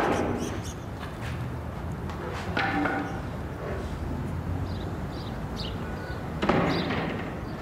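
A sharp knock at the start, then a couple of softer knocks and clatter about three seconds in and near the end, over a steady low background hum.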